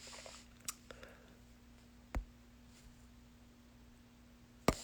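Quiet room tone with a faint steady hum and a few scattered soft clicks, the sharpest near the end.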